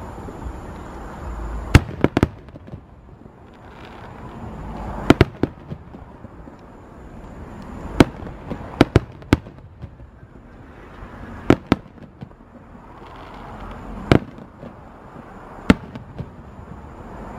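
Aerial firework shells bursting in a display: a dozen or so sharp bangs spaced a second or a few seconds apart, several coming in quick pairs and triples, over a steady background rumble.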